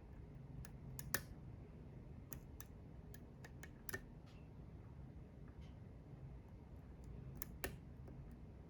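Faint, scattered clicks of a pick and tension wrench working the pin stack of a Goal S lock cylinder during single-pin picking, with the sharpest click about a second in and a pair near the end. The picking ends with a pin overset, which the picker suspects.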